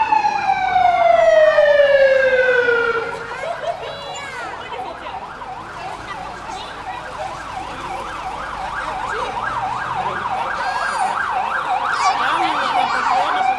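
Fire engine siren, loud: a slow falling wail for the first few seconds, then switching to a fast up-and-down yelp of about three sweeps a second, turning back into a rising wail at the end.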